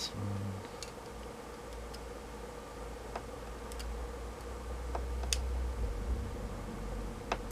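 Scattered small clicks and taps, irregularly spaced, from hands and tools handling a notebook battery pack's plastic casing and 18650 cells, over a faint steady hum.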